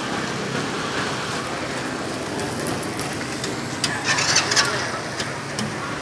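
Busy street ambience: steady traffic noise with background voices, and a short cluster of sharp clicks about four seconds in.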